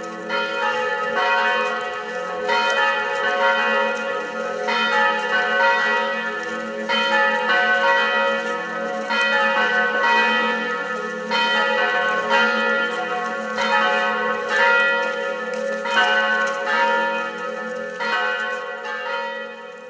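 Church bells ringing together, a fresh strike coming about once a second over the steady hum of the ringing tones, fading out near the end.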